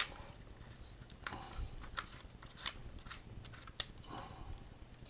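Handling noise from a handheld smartphone gimbal being set up: scattered small clicks and short rubbing and rustling sounds.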